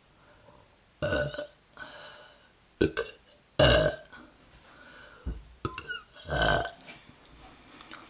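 A woman burping loudly three times, about a second in, near the middle and near the end, with short quieter sounds and breaths between the burps.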